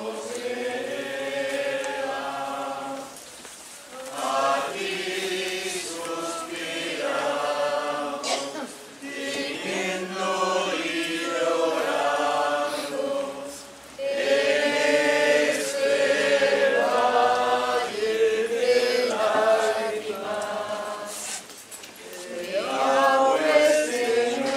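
A group of voices singing a devotional hymn in long held phrases, with short breaks between phrases.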